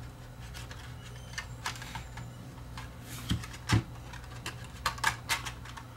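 Small plastic clicks and taps as a plastic inner cover is handled and fitted onto a smoke and CO detector's circuit board. Two louder knocks come about three and a half seconds in, and a quick run of clicks follows near the end.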